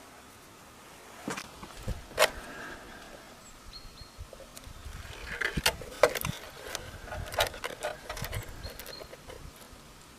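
Irregular clicks, taps and knocks of objects being handled, with some rustling; the loudest knocks come about two and six seconds in.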